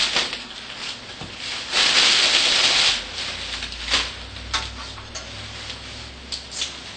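Tissue paper rustling and a cardboard box being handled and opened, with a longer burst of rustling about two seconds in, then a few sharp taps and clicks of cardboard.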